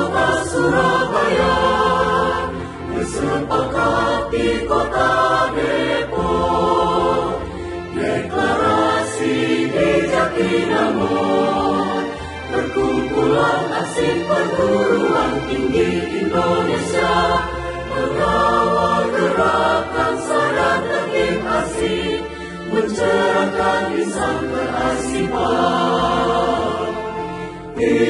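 A choir singing a march-style anthem in Indonesian, with musical accompaniment underneath.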